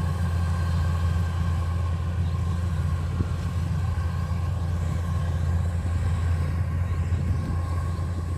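Kubota DC93 rice combine harvester's diesel engine and machinery running at a steady speed, a constant low rumble with a steady whine on top.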